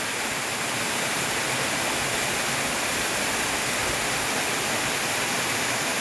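Steady, even rush of water from a waterfall, with no splashes or other events.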